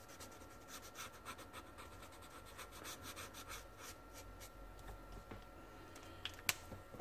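Felt-tip nib of a Promarker alcohol marker rubbing faintly on brown toned paper in many short, scratchy strokes as the colour is laid in, then a single sharp click near the end.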